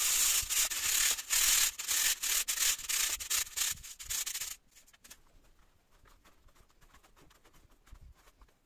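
Used green casting sand being rubbed by hand through a fine wire-mesh sieve, a loud scratchy hiss as the lumps are broken up and forced through to reclaim the sand. It stops about four and a half seconds in, leaving faint rustling as the sifted sand is handled in the bowl.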